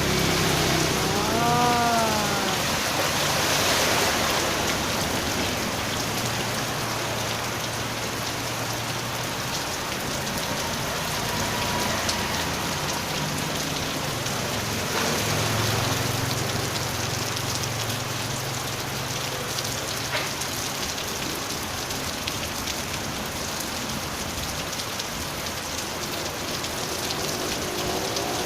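Heavy storm rain falling steadily, an even hiss of rain on surfaces. About two seconds in, a brief pitched call rises and falls over it.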